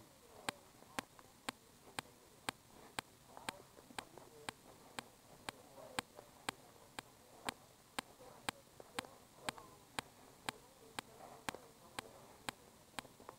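Even, regular ticking, about two sharp clicks a second, over faint distant voices.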